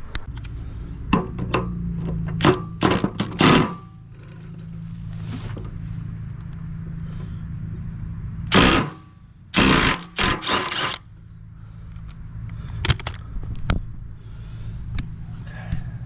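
Metal clanks and knocks from hand work on a lawn tractor mower deck's spindle and pulley. A steady low hum runs underneath, and two loud rasping bursts come a little past the middle.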